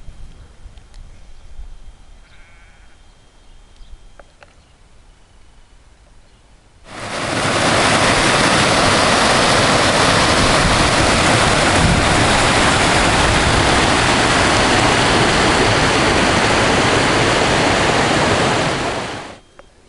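River rapids rushing over granite slabs, a loud steady roar of white water that starts abruptly about a third of the way in and cuts off just before the end.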